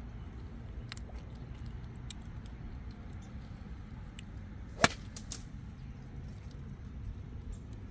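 A single sharp crack of a golf club striking a ball, about five seconds in, with a couple of faint clicks just after it, over a steady low background noise.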